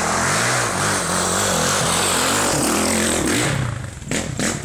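Off-road motorcycle engine revving up and down in quick surges as the bike rides the rough dirt trail. It is loud for about three and a half seconds and then drops away, with two short knocks near the end.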